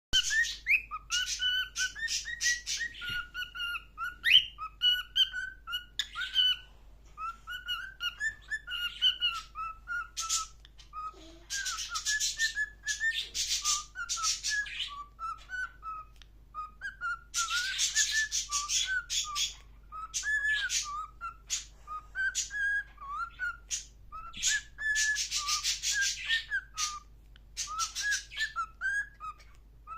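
Pet parrots giving a continuous run of short whistled chirps that glide up and down, broken three or four times by raspy chattering stretches lasting a second or two.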